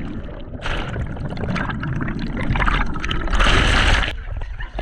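Water sloshing and gurgling, with a louder rushing splash about three and a half seconds in.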